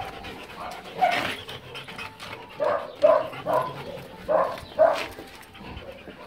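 A dog barking: about six short barks in three groups, one, then three, then two.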